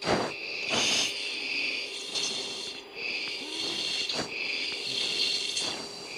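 Breathing through fighter-pilot oxygen masks, picked up over the cockpit intercom: hissing breaths from the oxygen regulator come and go every second or so, over a steady hum from the intercom.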